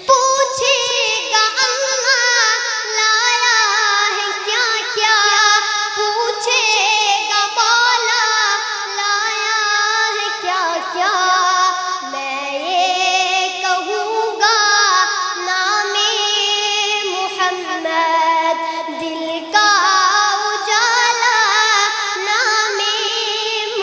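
A naat, an Urdu devotional song praising the Prophet Muhammad, sung by a high voice in a wavering, ornamented melody.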